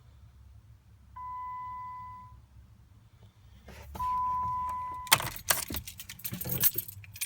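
Two steady electronic beeps, each about a second long, the second louder. Then a loud, irregular jangle of keys.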